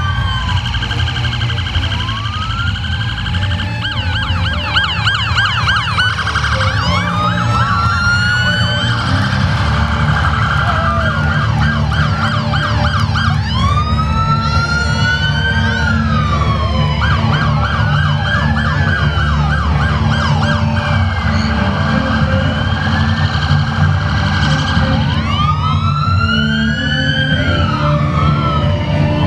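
Police vehicle sirens switching between a slow rising-and-falling wail and a fast yelp, over a steady low rumble.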